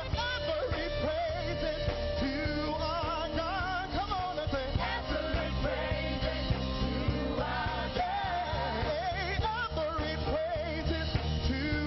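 Gospel worship singers singing into microphones over a live band, with a steady beat of drums and bass underneath; the voices waver with a wide vibrato.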